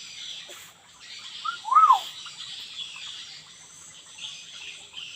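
Hill myna giving a short whistle that rises and falls, about two seconds in, over steady high insect chirring.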